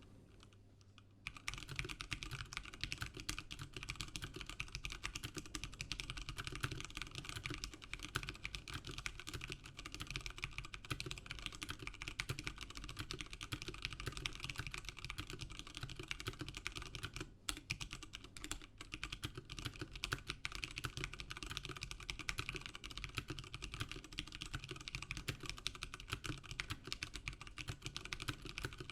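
Ozone Strike Battle tenkeyless mechanical keyboard with Cherry MX Brown switches, an aluminium plate and Ducky S4 PBT double-shot keycaps, typed on fast and without let-up. The typing starts about a second in and breaks off briefly a little past the middle.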